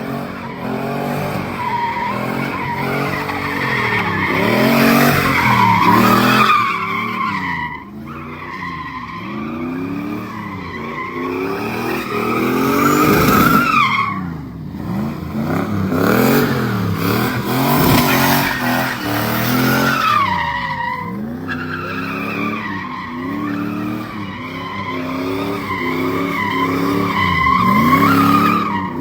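A car engine revving up and down over and over, its pitch rising and falling every second or two.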